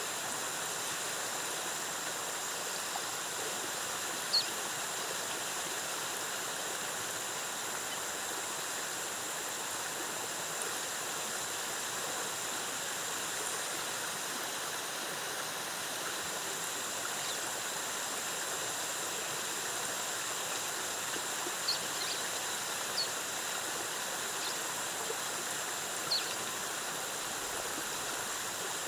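Waterfall cascading steadily, an even rush of water, with two steady high tones and a few short high chirps over it.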